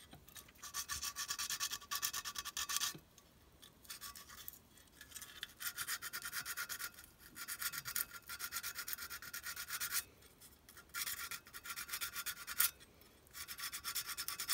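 Sandpaper rubbed briskly back and forth over the painted metal body of a clockwork O gauge locomotive, in spells of a couple of seconds with short pauses between, stripping off the thick old paint.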